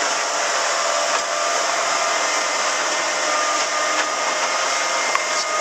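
Small motorboat running at speed: a steady rush of wind and water spray over the hull, with a faint steady whine from the engine beneath it.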